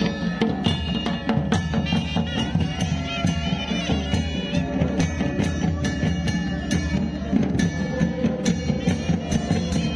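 Traditional Himachali deity-procession band playing: long brass horns and a reedy wind melody over rapid, steady drum strokes.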